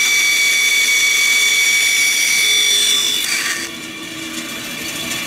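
Bandsaw blade cutting through a small block of wood, a loud, steady high-pitched whine. About three and a half seconds in the cutting noise drops away and the saw runs on with a lower, quieter hum.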